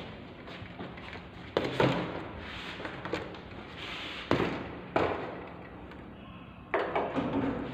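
A few sharp knocks and clunks from a wheeled luggage trolley bumping about in a lift, a second or more apart. The background noise jumps up suddenly near the end.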